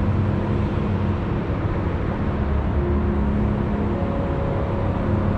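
Street traffic: a steady low rumble of car engines, with a faint hum running through it.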